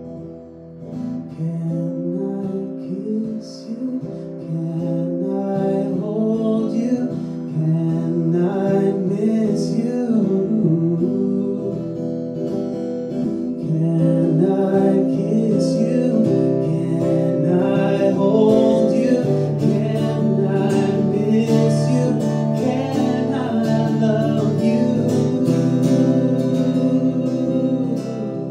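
A man singing to his own acoustic guitar accompaniment.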